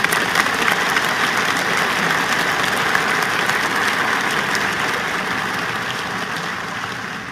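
Audience applauding, a dense crackle of many hands clapping that slowly dies away toward the end.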